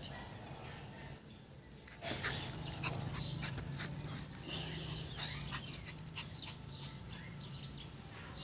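Small Chihuahuas moving about and making brief dog noises, with scattered short clicks over a steady low hum.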